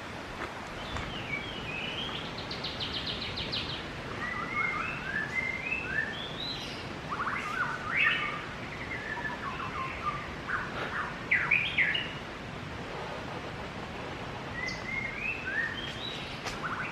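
Songbirds singing in the forest: a run of varied whistled phrases, quick trills and short rising series of notes, repeating with small pauses.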